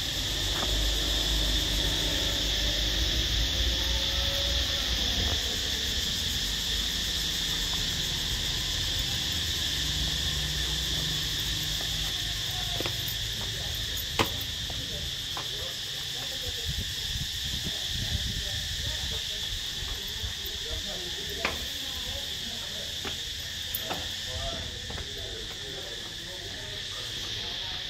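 Steady, high-pitched drone of insects that goes on without a break. A low rumble sits under it for the first few seconds, and a few sharp clicks come about halfway through.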